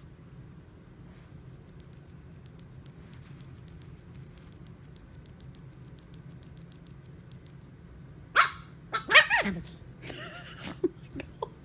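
Chihuahua barking sharply about eight seconds in, then a second, louder burst of barks that falls in pitch, and a few short, quieter yips after it.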